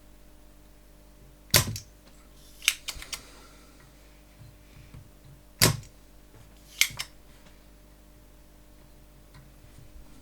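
Sharp clicks and knocks of small tools handled on a workbench during soldering work, about five in all: one about a second and a half in, a quick cluster near three seconds, and two more near six and seven seconds.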